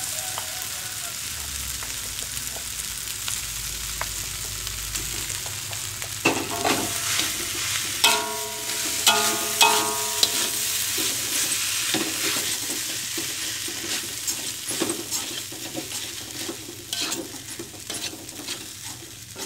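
Rice stir-frying in a wok in margarine: a steady sizzle, with a spatula scraping and knocking against the wok from about six seconds in and squeaking sharply a few times around eight to ten seconds.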